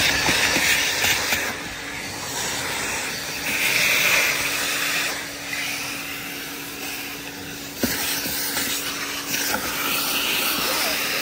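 Vacuum cleaner running with a steady hum, its suction hiss swelling and fading in several bursts; a single sharp knock about eight seconds in.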